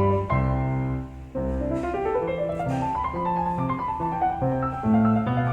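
Background piano music, with a run of rising notes about two seconds in.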